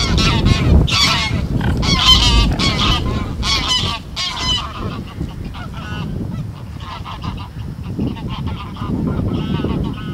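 A small flock of Canada geese flying over, honking repeatedly. The calls come thick and loud for the first four or five seconds, then go on more faintly.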